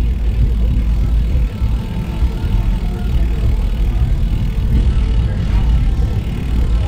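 Wind buffeting the microphone of a camera riding on a moving bicycle: a loud, uneven low rumble.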